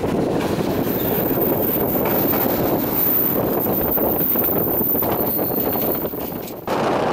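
Electric train running along the track, heard through an open side window: a steady rumble of wheels and running gear mixed with wind on the microphone. The noise drops for a moment near the end, then returns suddenly.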